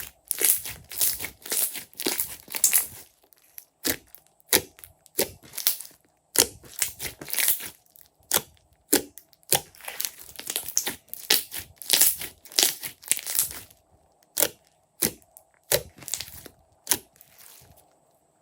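Clear slime being squeezed and poked by hand, giving irregular sticky crackles and pops. These come thick and fast at first and thin out to single pops over the last few seconds.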